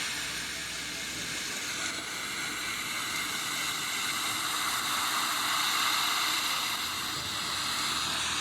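Steady hiss from the soundtrack of volcanic eruption footage being played back, with faint high steady tones in it and almost no low rumble.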